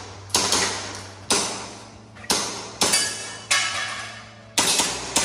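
Airsoft pistol shooting: about six sharp shots at uneven intervals of half a second to a second, each followed by a metallic ring that fades over most of a second.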